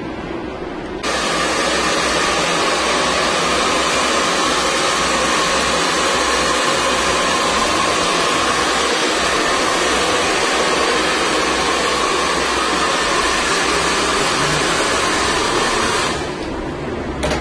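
Handheld hair dryer switched on about a second in, blowing steadily with a faint whine, and switched off about a second before the end.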